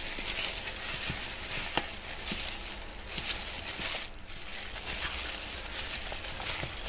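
A plastic bag worn over a hand crinkles and rustles as it rubs seasoning into raw chicken pieces in a bowl, with a few small clicks along the way.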